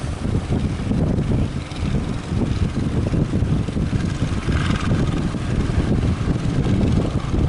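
Strong sea wind buffeting the microphone in a heavy, choppy rumble, with a brief hiss of surf about halfway through.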